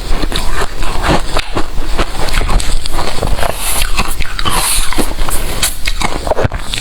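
Ice being bitten and chewed: a dense, unbroken run of crunches.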